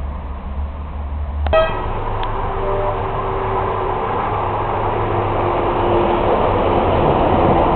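A short toot from a miniature railway locomotive's whistle or horn about a second and a half in, followed by a steady, slowly growing rush of running noise as the train moves.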